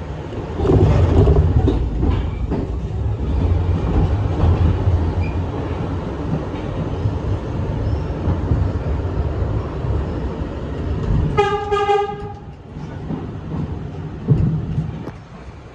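New York City subway train running at speed through the tunnel, a loud steady rumble with rattling wheels on the rails. About eleven seconds in, a train horn sounds once for about a second.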